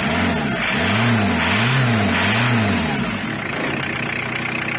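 Car engine revved in about three or four quick blips, its pitch rising and falling each time, then settling back to a steady idle about three seconds in.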